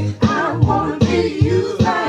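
Music with singing over a steady beat of bass and drums.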